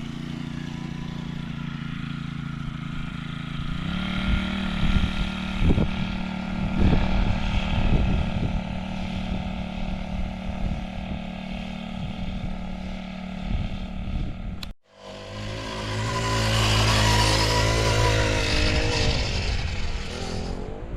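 A small four-stroke mini bike engine running steadily. Its pitch steps up about four seconds in, with scattered knocks and clatter. After a sudden cut near the end, the engine is heard louder, with a wavering pitch.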